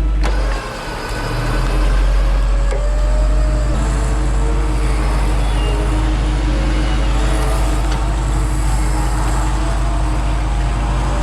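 Vehicle engine running steadily with a deep, even hum.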